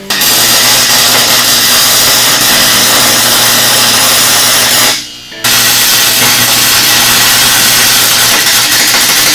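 Welder tack-welding steel chassis sleeves inside a car frame: a steady, loud hiss with a low hum under it, in two long runs with a short break about five seconds in.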